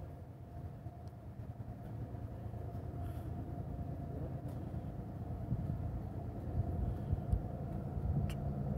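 Approaching CSX intermodal freight train led by GE diesel locomotives: a steady low rumble with a faint steady tone, growing gradually louder.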